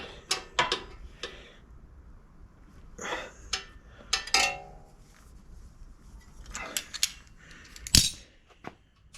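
Scattered metal clinks, knocks and short scrapes from hand tools and bike parts being handled during an e-bike rear wheel and brake adjustment, with one sharp knock near the end.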